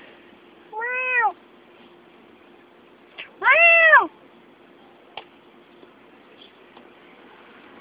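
Domestic cat meowing twice, about a second in and again about three and a half seconds in; each meow rises and then falls in pitch, and the second is longer and louder.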